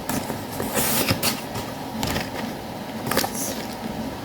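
Packaging being handled: a few short crinkles and scrapes, about a second, two seconds and three seconds in, over a steady low room hum.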